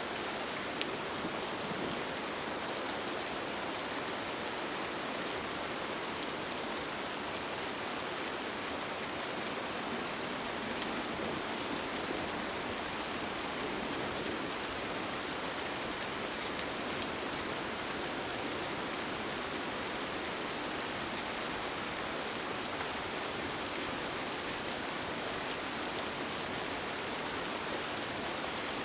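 Steady rain falling, heard from inside a tent, with scattered single drops ticking sharply through the even hiss.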